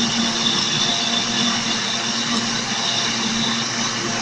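Countertop blender motor running steadily while cooking oil is drizzled in through the lid, blending milk and garlic into a thick garlic cream.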